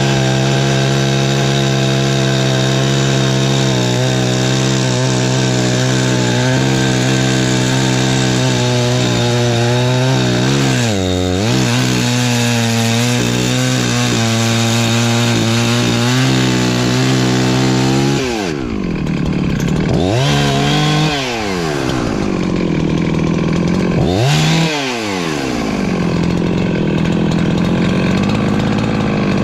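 Perla Barb 84cc two-stroke chainsaw cutting firewood, running at steady high revs with one brief dip about eleven seconds in. In the last third the revs drop and climb back several times.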